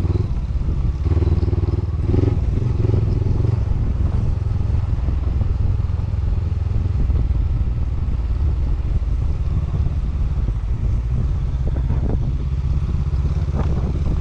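Honda CB500X parallel-twin motorcycle engine running steadily while riding a rough trail, with a few knocks near the end.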